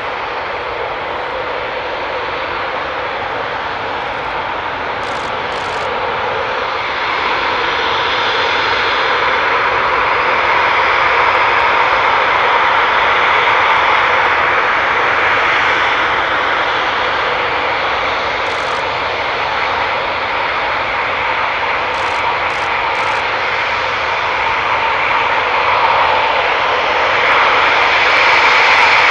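Eurofighter Typhoon fighter jets' twin EJ200 turbofan engines running as the jets taxi, a steady rushing jet noise with a whining tone. It grows louder about seven seconds in and again near the end as a jet turns onto the runway.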